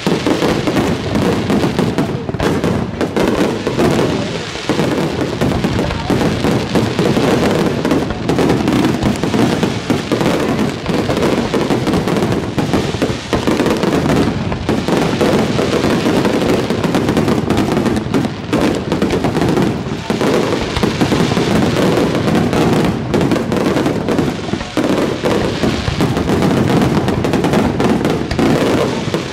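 Fireworks display in a dense, continuous barrage: shells and firecrackers bursting so close together that the bangs overlap, with no pauses.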